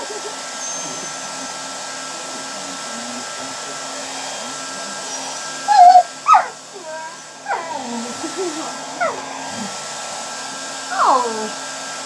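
Handheld hair dryer running steadily, with a puppy whining and yelping at it several times over the blower noise; the loudest cries come about six seconds in.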